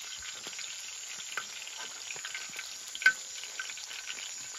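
Pacu fish frying in hot oil in a shallow pan, a steady sizzle dotted with small crackles. A sharp click about three seconds in.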